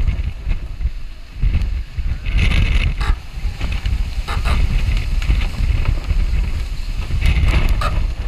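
Strong wind buffeting the microphone with a constant low rumble, over the rushing water of a Class 40 racing sailboat driving through storm waves. Sheets of spray hiss across the deck in surges, about two and a half seconds in, again around four and a half seconds, and near the end.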